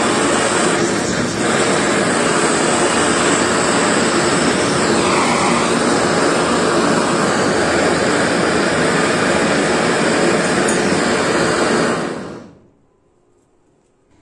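Blowtorch flame burning with a loud, steady rushing hiss while silver is melted for casting. About twelve seconds in the torch is shut off and the sound dies away within half a second.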